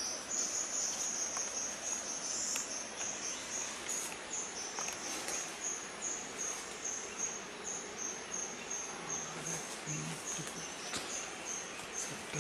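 An insect chirping a high, steady pulsed note, about two to three pulses a second.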